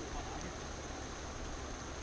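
Steady outdoor background hiss at a pond bank, with no distinct events.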